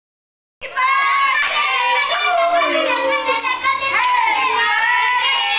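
Voices singing a melody, starting abruptly about half a second in, with a few sharp claps.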